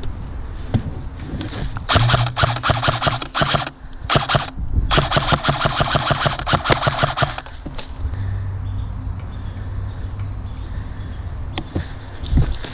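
Airsoft electric rifle firing on full auto in three rapid bursts, a short one about two seconds in, a brief one, then a longer one of about two and a half seconds.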